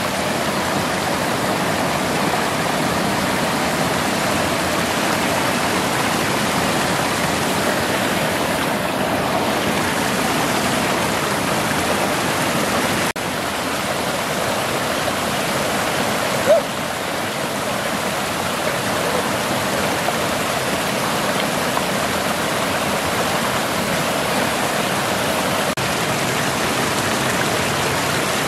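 Water of a shallow stream pouring over small rock cascades: a steady, loud rush of falling water.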